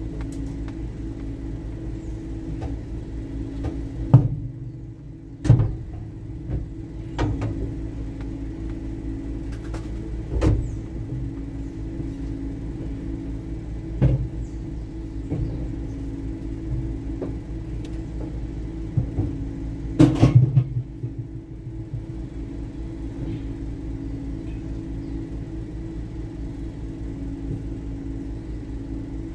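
A motor vehicle's engine running with a steady low hum, with a handful of sharp knocks and thumps scattered through it; the loudest cluster comes about twenty seconds in.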